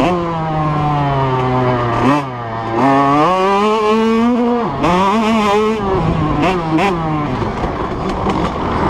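Motocross bike engine running hard under the rider, its pitch rising and falling several times as the throttle opens and closes. Near the end it turns rougher and choppier.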